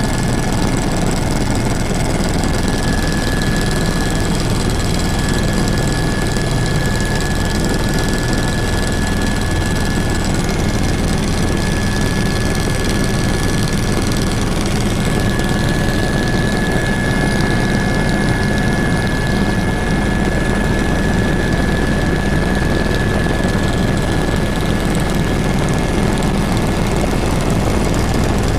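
Helicopter in flight, heard from inside the cabin: steady, loud engine and rotor noise with a thin, steady high whine.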